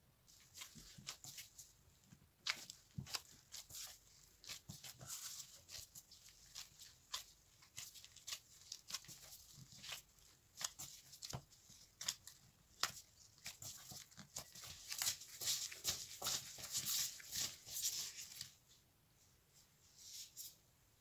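Gloved hands kneading empanada dough of flour, water and oil in a glass bowl: a steady run of soft, sticky crackles and clicks from the dough and plastic gloves, thickest and loudest a few seconds before the end, then stopping.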